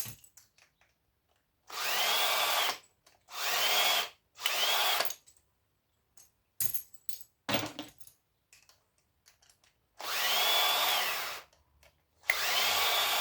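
Power drill/driver spinning in five short runs of about a second each, its motor pitch rising and falling each time, as it backs screws out of a cast-aluminium motor housing. Small clicks and knocks of parts being handled come between the runs.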